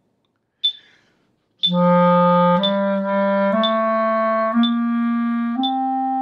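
A metronome ticks once a second at 60 beats per minute. About one and a half seconds in, a clarinet starts a slow G major scale, holding one steady note per tick and rising stepwise, five notes in all.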